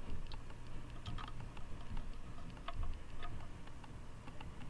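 Scattered light clicks and taps from handling a monitor's power circuit board as replacement electrolytic capacitors are pushed into its holes.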